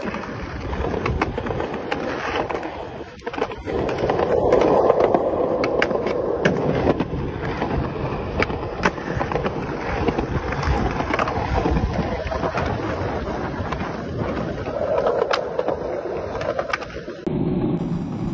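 Skateboard wheels rolling over concrete pavement, a steady gritty rumble broken by repeated sharp clacks of the board's deck and tail during tricks. Near the end the rolling changes to a deeper rumble on asphalt.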